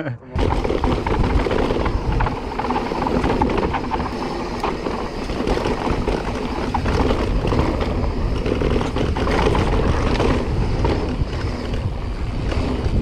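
Mountain bike riding fast down dry dirt singletrack: a steady rush of wind on the chest-mounted action camera's microphone and tyre rumble, with scattered clicks and knocks from the bike over rough ground.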